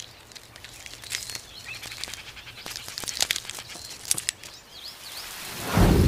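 Faint outdoor nature ambience with scattered small clicks and a few faint high chirps. Near the end a loud rush of rain-like noise with a low rumble begins.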